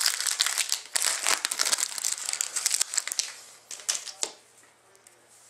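Trading card pack wrapper being torn open and crinkled for about three seconds, then two short rustles as the cards come out of the pack.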